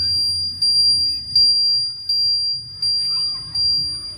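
Side indicator buzzer on a Hero motorcycle sounding a steady high-pitched tone that swells louder about every three quarters of a second, in time with the flashing turn indicator: the sign that the indicator is switched on.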